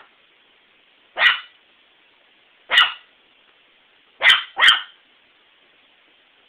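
Small white dog barking: four short, sharp barks, a single one about a second in, another a second and a half later, then two in quick succession.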